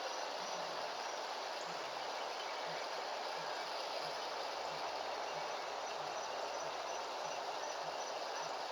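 Steady background hiss with insects chirping in a regular rhythm, a few chirps a second, over a soft low pulse about every two-thirds of a second.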